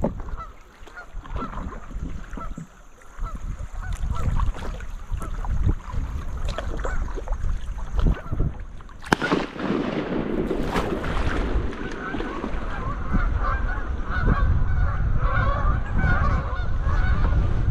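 Waterfowl calling again and again over wind and water noise, the calls coming thick and fast in the last few seconds.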